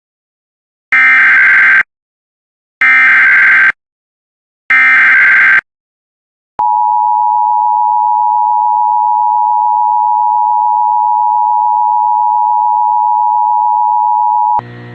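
Emergency Alert System activation: three bursts of SAME digital header data, about a second each, then a steady attention tone held for about eight seconds, announcing a National Weather Service flash flood warning.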